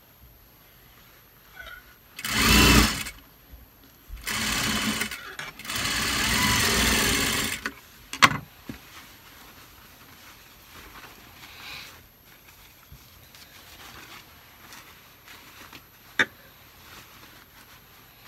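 Juki industrial sewing machine stitching a sleeve into a shirt's armhole in three short runs, the first the loudest, then stopping. Two sharp clicks follow later, one after the machine stops and one near the end.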